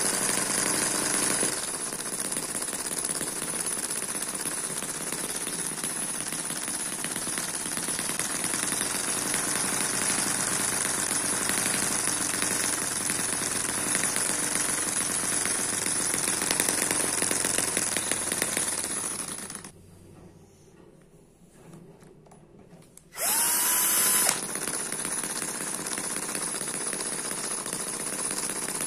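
Eachine EM1 opposed-piston four-stroke mini engine running steadily at a low speed with a fast, even rhythm. About two-thirds of the way through the sound drops away for a few seconds, then a brief louder burst with a rising whine comes before the steady running resumes.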